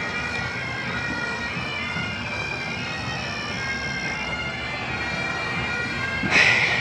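Bagpipes playing a tune over their steady drones, with a short loud burst of noise near the end.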